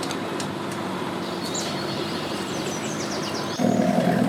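Steady outdoor background with birds chirping, including a quick falling trill. Near the end a loud, steady low drone starts suddenly.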